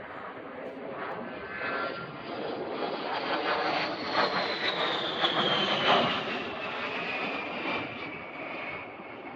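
A-10 Thunderbolt II's twin General Electric TF34 turbofan engines on a pass. The jet noise builds to its loudest a little past halfway, and a high whine drops steadily in pitch as the aircraft goes by and away.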